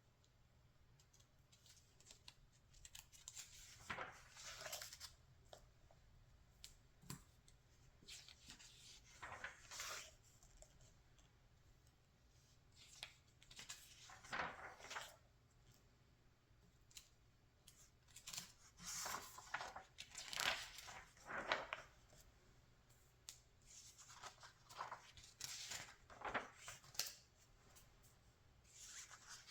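Magazine pages being turned by hand: a soft paper swish and rustle every five seconds or so, with faint handling of the paper in between.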